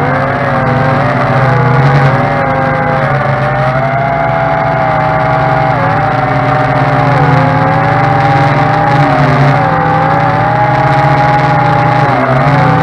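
Tarantula X6 quadcopter's electric motors and propellers whining in flight, several steady pitches that dip and rise together as the throttle changes, with a sharp dip a little before the end.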